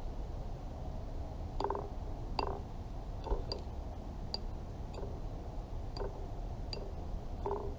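American robin's beak pecking at a terracotta saucer as it picks up live mealworms: about nine sharp clicks at irregular intervals over a steady low background hum.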